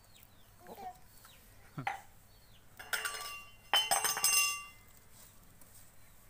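Hens clucking, with two louder harsh calls about three and four seconds in, over repeated faint high chirps.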